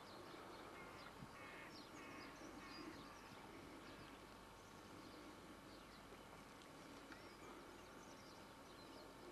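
Faint birds chirping and calling over a steady low hiss, with a few stronger repeated calls between about one and three seconds in.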